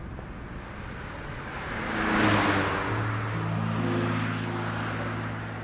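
A car passing by, a rushing whoosh that swells to a peak about two seconds in and fades. Low, steady held music notes then come in, with crickets chirping rapidly.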